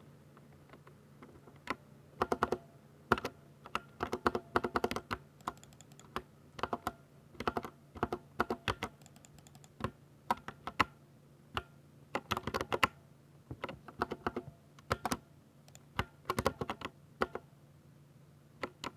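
Typing on a Ducky 60% mechanical keyboard with linear Cherry MX Speed Silver switches: quick bursts of keystrokes with short pauses between them.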